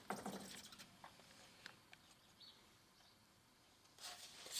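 Near silence with faint workbench handling noises: a thin plywood rib web being handled and a small stick scraping against it as glue is dabbed on. The scratchy rustling comes in two brief spells, at the start and again near the end.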